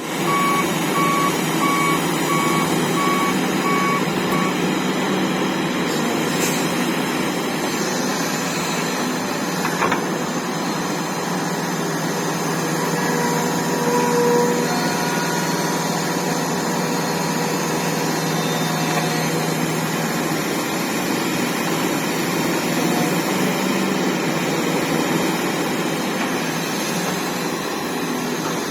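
Heavy diesel machinery running steadily as a Volvo 750 excavator loads a Scania P360 dump truck. A backup alarm beeps in an even row for the first four seconds or so, and there are a couple of brief knocks later on.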